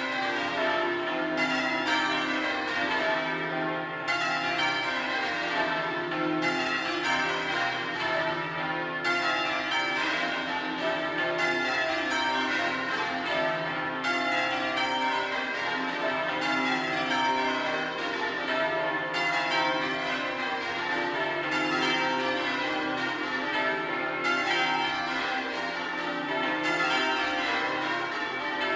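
Change ringing on the Bow Bells, the ring of twelve church bells cast in 1956 by Mears and Stainbank with a 41 cwt tenor in C. It is an unbroken stream of bell strikes in rows, with a fresh row starting about every two and a half seconds.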